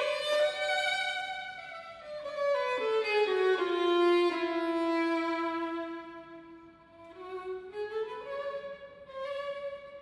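Solo violin playing a slow melody: the notes step down to a long low note that fades away about seven seconds in, then climb again to a held higher note.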